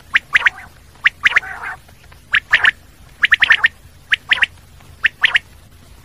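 Common quail singing its 'wet-my-lips' song: phrases of two or three short, sharp notes, repeated about once a second. One lower, rougher note follows the second phrase.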